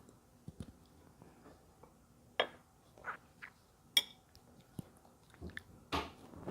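Quiet eating: soft chewing and mouth sounds with a few sharp little clicks, the loudest about two and a half seconds and four seconds in.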